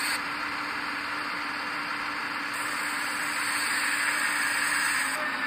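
Hydraulic pump of a 1/14-scale RC Volvo excavator running while the boom and bucket move: an even hiss over a steady low hum.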